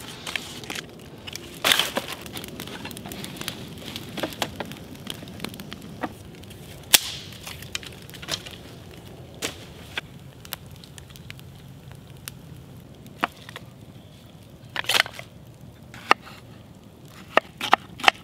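Wood campfire crackling, with sharp, irregular cracks and pops. Near the end, a knife chopping jalapeños on a wooden board in several quick strokes.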